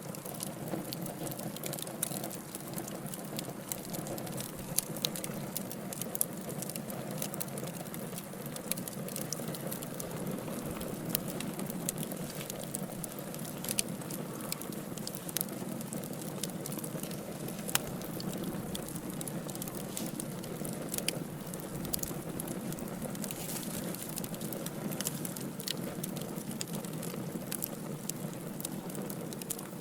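Wood fire burning in a fireplace: a steady low rush with frequent sharp crackles and pops from the burning logs, a few standing out louder.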